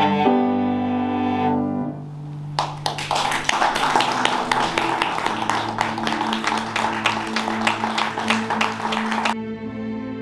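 Cello with piano ending a piece on a held bowed note, followed by about seven seconds of applause. The applause cuts off abruptly near the end and soft background music takes over.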